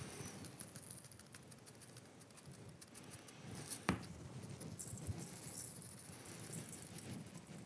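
Coarse steak seasoning spooned from a small jar and sprinkled over ground venison in a stainless steel bowl: faint patter and light ticks. A sharp click a little under four seconds in, as the glass spice jar is set down on the countertop.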